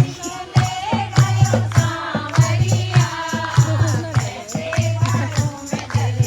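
Music: singing over a steady thumping bass beat with shaken rattle and tambourine-like percussion.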